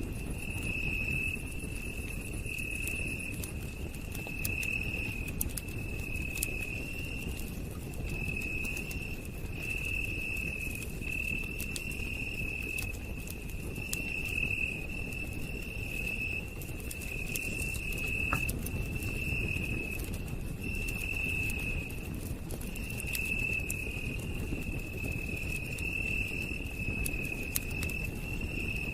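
Campfire crackling, with scattered sharp pops over a steady low rumble of burning wood. Over it, a night insect trills in a high, even tone, repeating in short bursts of about a second.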